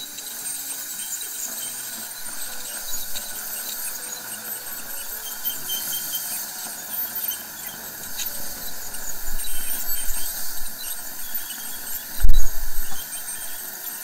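Ultrasonic dental scaler working on the lower front teeth around orthodontic brackets to remove stain, with a high-pitched steady hiss from the tip and the dental suction. A brief loud low thump about two seconds before the end.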